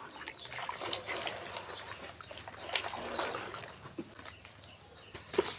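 Dry, crumbly clumps of cement or dirt being crushed and crumbled between the fingers: an irregular crackle of small clicks and crunches, with one sharper snap near the end.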